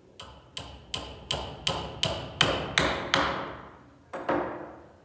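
A hammer driving a 1 1/4 inch finish nail into a wooden board held in a bench vise: nine quick blows, about three a second, each with a short ring and getting louder as the nail goes in. One more knock follows about a second later.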